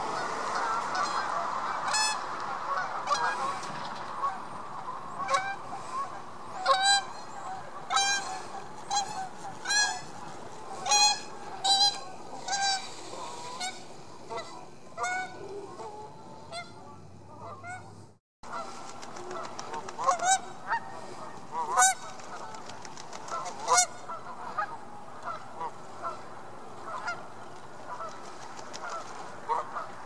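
Canada geese honking: many short calls, some singly and some in quick runs. The sound cuts out for a moment a little past halfway.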